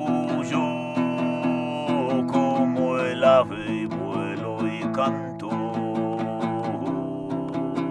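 Music: a small two-string long-necked lute strummed in quick, even strokes over a held low drone. A higher line slides up and down between about two and five seconds in.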